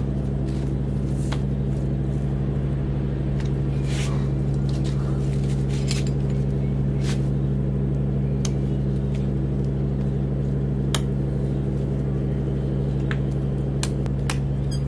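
A steady low mechanical hum, like a motor running, with scattered sharp clicks and snaps of dry roots being pulled and broken away by hand from the root ball of a bonsai stock plant.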